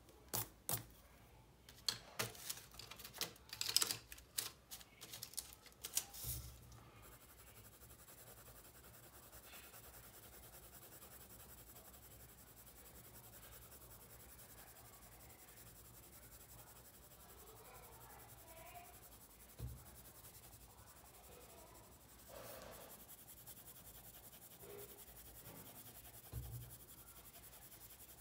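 Coloured pencils clicking and clattering against each other in quick knocks for the first few seconds, as one pencil is put down and another picked up. Then the faint scratch of a pencil colouring on paper, with a few soft bumps.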